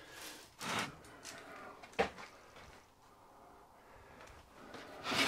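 Metal engine parts being handled on a workbench: a short rubbing scrape, then a single sharp knock about two seconds in, as the crankshaft and main bearing are settled into the cast crankcase.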